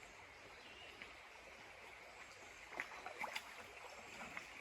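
Faint creek ambience: a steady hiss of flowing water, with a few short clicks about three seconds in.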